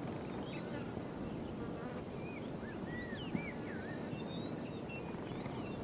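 Outdoor nature ambience: a steady low buzzing hum like insects, with faint high bird-like chirps and whistles around the middle.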